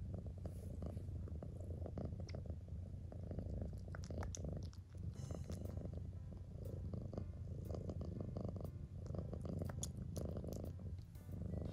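A black-and-white domestic cat purring steadily while its chin and neck are scratched, a low, fast-pulsing rumble that dips briefly about five seconds in and again near the end.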